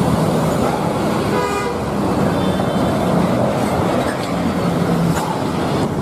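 Steady traffic rumble, with a brief horn toot about a second and a half in.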